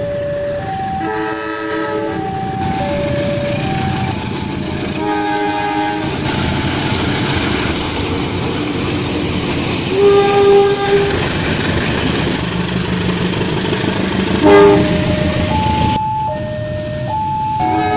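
Indonesian diesel locomotive sounding its multi-note horn in several blasts as it approaches and passes with its train; the loudest blast comes about ten seconds in and a short one follows a few seconds later. The rumble of the engine and wheels fills the middle of the passage. Alternating electronic warning tones, like a level-crossing alarm, sound at the start and again near the end.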